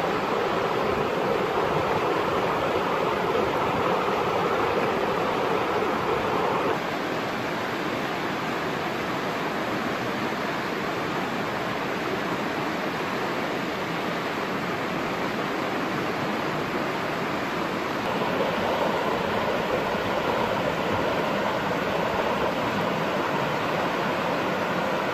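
Fast stream rushing and splashing over rocks: a steady noise of running water that shifts slightly in tone and loudness twice.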